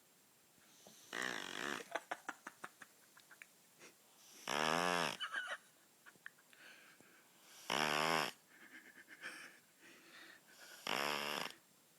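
A sleeping child snoring: four loud snores about three seconds apart, each lasting about half a second. The first trails off into a string of soft fading clicks.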